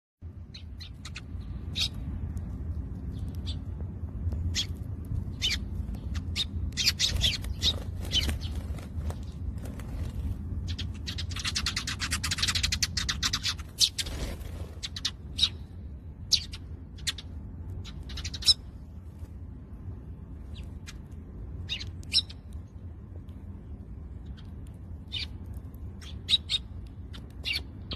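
Eurasian tree sparrows chirping: short, sharp, high chirps at irregular intervals, with a dense run of rapid strokes about halfway through. A steady low hum lies underneath.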